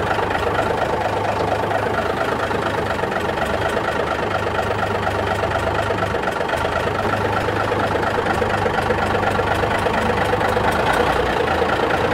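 1950s Euclid off-road truck's engine running steadily as the truck drives slowly, after sitting for over ten years.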